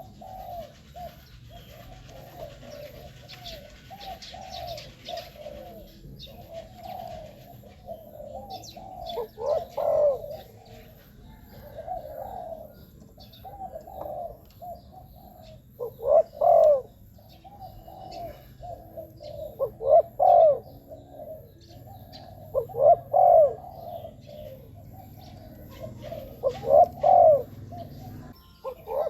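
Spotted dove cooing: a steady run of soft coos, broken every three to four seconds by a louder phrase of coo notes.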